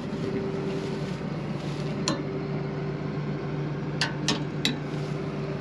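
Steady engine hum, with four sharp metallic clicks as the bolts of the combine's sickle knife sections are checked: one about two seconds in and three close together near the end.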